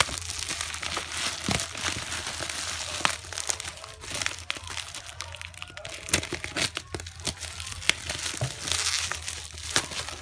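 Bubble wrap and plastic packaging being unwrapped by hand, crinkling and crackling with many sharp clicks.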